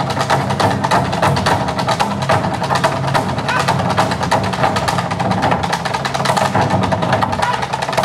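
A Korean drum ensemble playing a fast, dense stick rhythm on painted drums.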